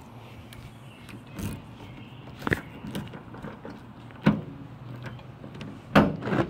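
Key working in the trunk lock of a 1992 Mercedes-Benz 190E, giving several separate sharp clicks and knocks of the lock mechanism, the loudest about two-thirds of the way in and near the end. The owner says the key is worn out and will not work the lock.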